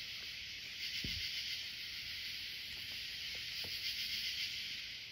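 Steady high-pitched chorus of night insects such as crickets or katydids, with a faint low knock about a second in.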